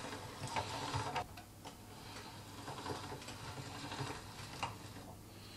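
Hand-cranked pasta machine turned with its linguine cutting attachment fitted, its gears and cutter rollers giving quiet, uneven ticks and clicks.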